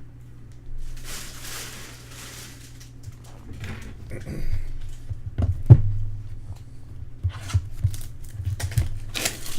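Plastic packaging being crinkled and torn as a trading-card box is opened, followed by handling clicks and knocks, with one sharp thump about halfway through. A steady low hum runs underneath.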